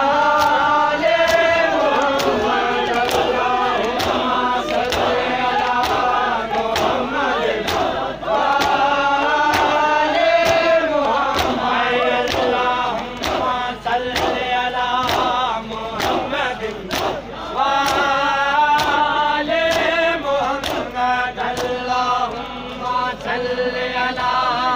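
A crowd of men chanting a Punjabi noha (lament) in unison, with sharp matam slaps, hands beating on chests, keeping an even beat of about three every two seconds.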